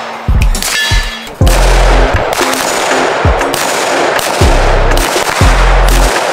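Irregular gunshots from handguns fired on an outdoor range, mixed with background music with a heavy bass line.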